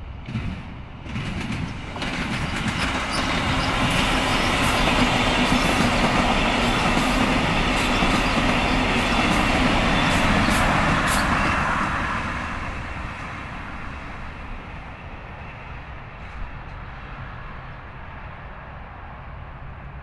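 VIA Rail passenger train, a Siemens Charger locomotive hauling Venture coaches, passing close by. It builds over the first few seconds, stays loud for several seconds with clicks from the wheels on the rails, and fades away after about twelve seconds.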